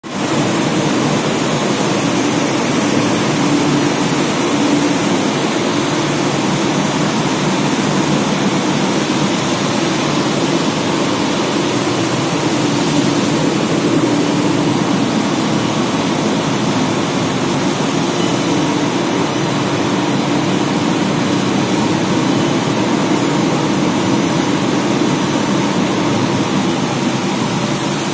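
Industrial machinery running steadily: a continuous hum with hiss, unchanging throughout.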